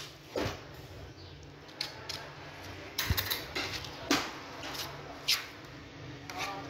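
Raw lamb being handled and cut on a wooden butcher's block: a few short knocks and slaps of meat and knife against the block, scattered through, over a steady low hum.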